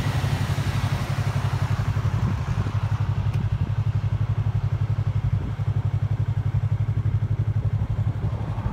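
An engine idling close by: a steady low throb of quick, even pulses.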